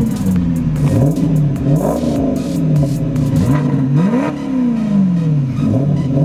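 The V8 engines of a parked Maserati Quattroporte and Dodge Challenger SRT8 are revved in repeated blips over an idle. Each blip rises quickly and falls back slowly, and some overlap as if both engines are revving at once.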